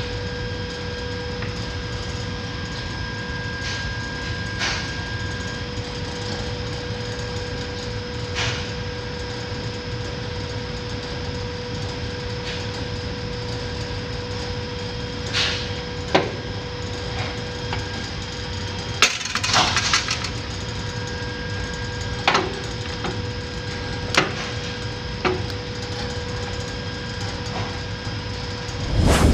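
Steady machine hum with a constant whine, broken by scattered sharp knocks and clicks, with a short cluster of them about two-thirds of the way through.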